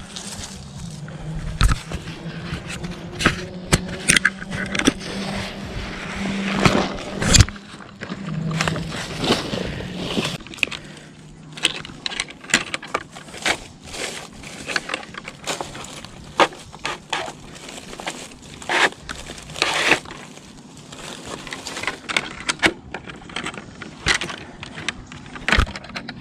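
Rustling and crunching in dry leaf litter, then the clicks, knocks and scrapes of fishing gear being handled, including a plastic fish measuring board.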